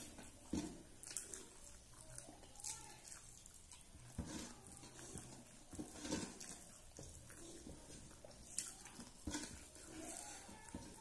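Eating sounds from a person eating rice by hand: irregular chewing and lip smacks, mixed with soft clicks and squishes of fingers working the rice on a steel plate.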